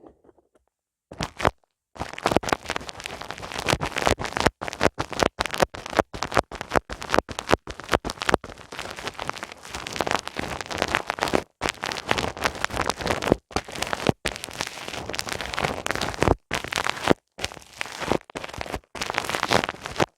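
ASMR ear massage on a binaural microphone's ears: close, dense crackling and rubbing noise from something worked against the mic ears, broken by short silent pauses.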